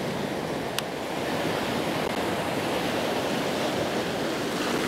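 Sea surf washing onto a sandy beach, a steady rushing noise, with one brief sharp click a little under a second in.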